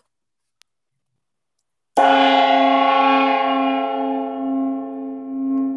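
A gong struck once about two seconds in, ringing with many overtones and slowly dying away with a wavering hum: the lightning-talk gong marking the end of a talk.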